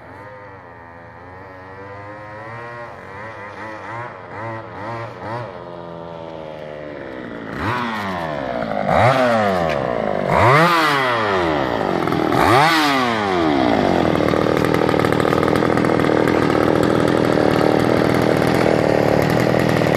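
Homelite 23cc two-stroke string-trimmer engine driving a friction-drive motorized bicycle. It runs with its pitch swinging up and down and grows steadily louder, then is revved sharply three times, about 9, 10 and 12 seconds in, before settling into a steady run.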